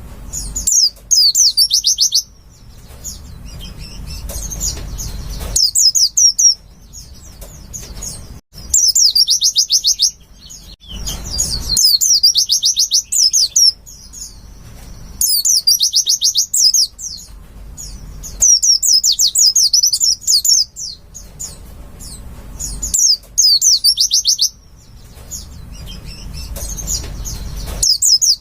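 Pleci (white-eye) song: repeated phrases of rapid, high twittering, each a second or two long, with short pauses between, over a faint low rumble.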